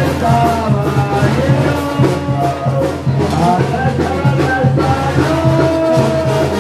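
Brass band music with a steady drum beat, the horns playing a melody of held notes.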